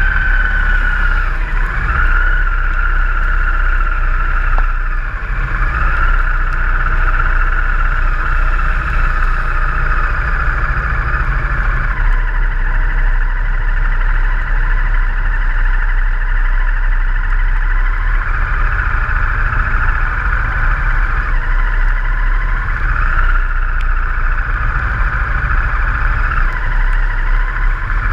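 Motorcycle running at road speed under a constant rush of wind and road noise, its engine note dipping and rising several times.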